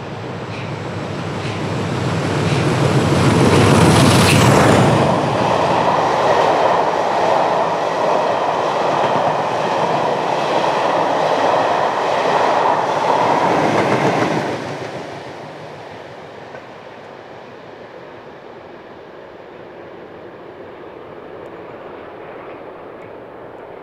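Class 47 diesel locomotive with its Sulzer V12 engine, growing louder as it approaches and passes close by about four seconds in. Then the coaches' wheels run over the rails at a steady level for about ten seconds. The noise drops sharply as the end of the train goes by and then fades away.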